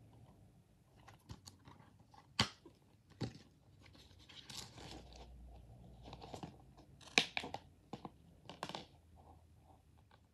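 Plastic Blu-ray case being handled and turned over: irregular rustling with a handful of sharp clicks and snaps from the case.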